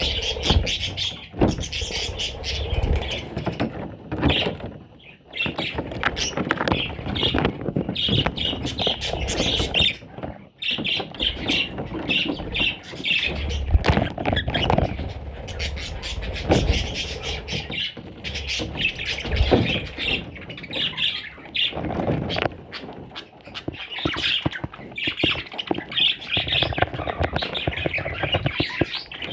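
Budgerigar chicks calling nonstop with raspy, overlapping squawks.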